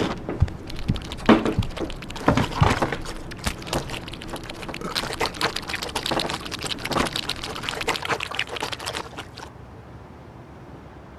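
Water splashing and sloshing: a dense run of small splashes and clicks, louder in the first few seconds, that cuts off suddenly about a second and a half before the end.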